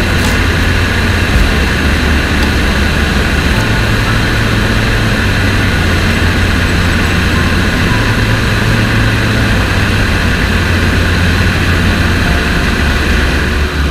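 Tiger Moth biplane's engine and propeller running steadily in level flight, heard from a camera out on the wing, with the rush of the slipstream over the microphone.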